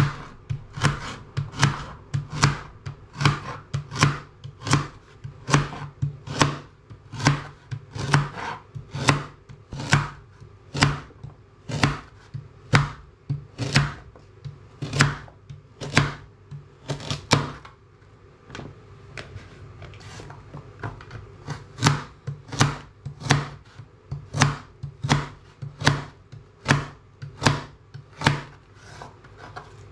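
Large kitchen knife chopping a carrot into rounds on a plastic chopping board: a sharp knock at each cut, about two a second, going softer for a few seconds past the middle before picking up again.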